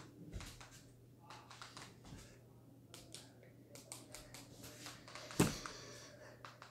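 Faint scattered clicks and rustles, with one louder knock about five and a half seconds in.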